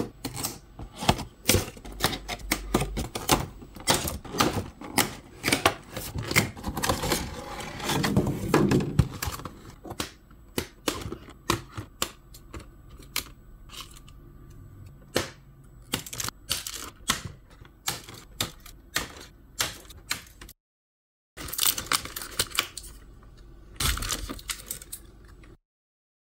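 Doll packaging being opened: scissors snipping and plastic blister packaging and cardboard being handled, heard as an irregular run of sharp clicks, crackles and rustles. The run is densest in the first third and breaks off briefly about three-quarters of the way through.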